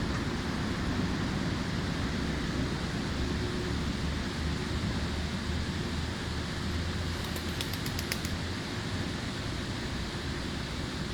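Steady low background rumble with no distinct events. About seven seconds in, a quick run of roughly eight faint high clicks is heard.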